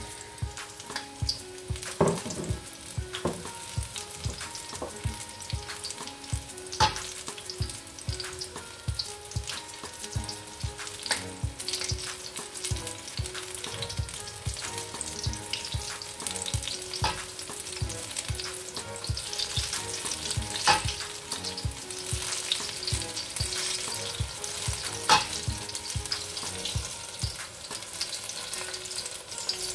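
Chickpea-flour-battered chicken and vegetable shashlik skewers deep-frying in hot soybean oil: a steady sizzle with sharp crackles and pops every few seconds.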